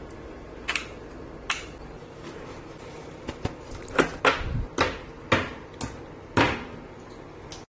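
Small plastic 1/6-scale figure parts being handled and set down on a tabletop: two light clicks in the first couple of seconds, then a run of about half a dozen sharper knocks as pieces are placed, over a steady low hiss.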